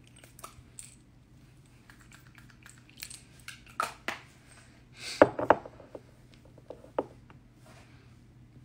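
Light handling noises close to the microphone: scattered small clicks and knocks, with a short clatter about five seconds in.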